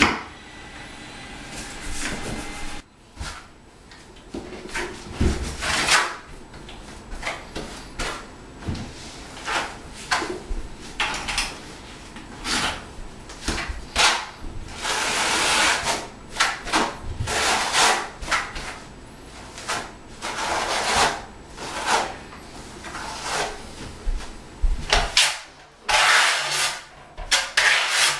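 Trowel scraping and combing thinset tile mortar in a run of short, irregular strokes, spreading it across the floor and onto the back of a large porcelain tile.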